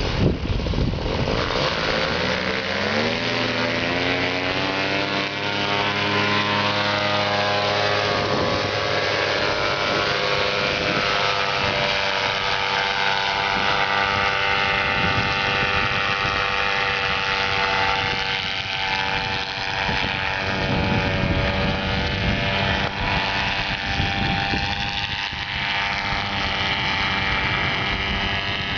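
An engine speeds up over the first few seconds, its pitch rising, then runs steadily at high speed. Wind buffets the microphone throughout.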